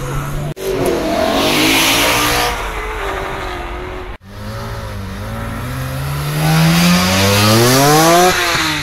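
Car engines accelerating hard. In the second half one engine revs up steadily in rising pitch, then drops sharply near the end, as at a gear change. The sound cuts out abruptly twice, about half a second in and about four seconds in.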